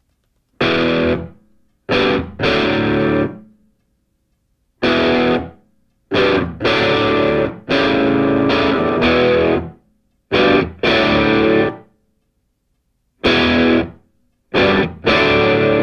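Background music: a distorted electric guitar strikes chords in short stop-start stabs, each ringing briefly before a silence.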